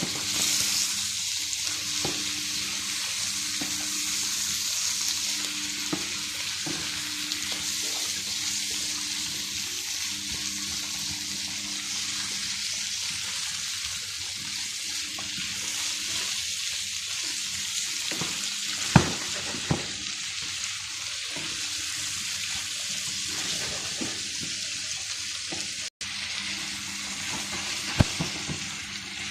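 Chopped bacon, onion and mushrooms sizzling in a frying pan as a steady hiss while they are stirred with a wooden spatula. A couple of sharp knocks of the spatula against the pan stand out late on.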